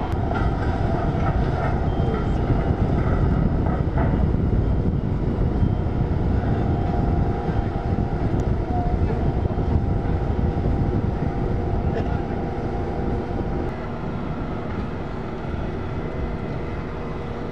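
Steady drone of heavy machinery engines running, with a steady tonal hum on top and no clear starts or stops.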